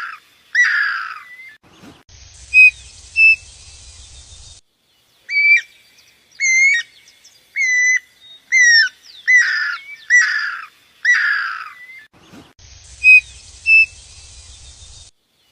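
A bird calling in short whistled notes, several sliding downward, in quick runs. Between the runs are pauses where two brief higher notes sound over a faint hiss. The same sequence of calls repeats about ten seconds later.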